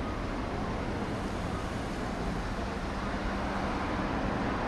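Road traffic: cars passing at low speed over a steady low rumble of street noise, a little louder near the end.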